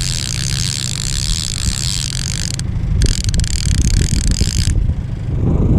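Boat motor running steadily at trolling speed, under a hiss of wind and water. The high hiss drops out briefly about two and a half seconds in and again near the end.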